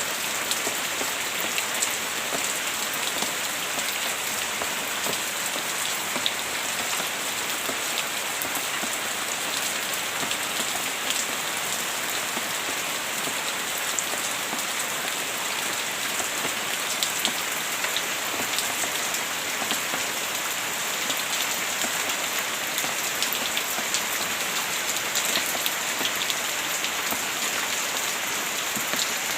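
Heavy rain falling steadily: a dense, even hiss peppered with many small drop ticks.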